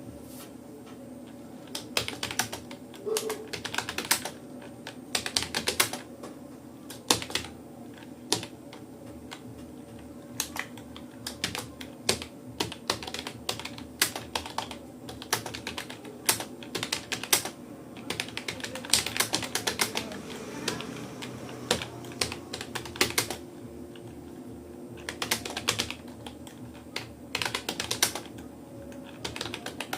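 Typing on a Rapoo computer keyboard during a timed typing-speed test: irregular runs of keystrokes broken by short pauses.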